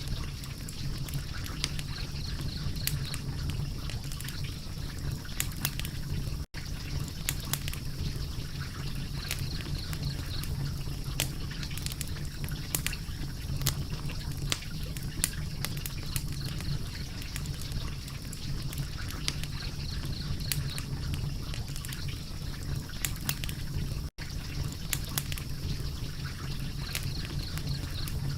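Wood fire crackling steadily, with frequent sharp pops and snaps over a low rumble. The sound cuts out for an instant twice.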